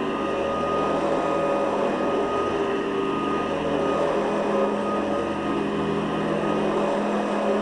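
Hoover Guardsman commercial bagless upright vacuum cleaner running steadily while vacuuming, its motor giving a constant whine.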